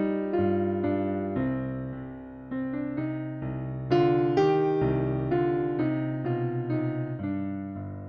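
Background music: a gentle solo piano piece, with notes and chords struck every half second or so, each ringing and fading.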